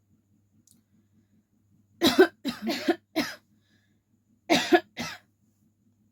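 A person coughing in two short bouts: three coughs about two seconds in, then two more about a second later.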